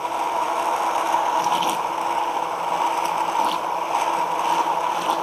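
Cuisinart SmartStick CSB-77 hand blender switching on and running steadily with a whirring motor and an even whine, its blade submerged in a beaker of oil-and-vinegar dressing being emulsified.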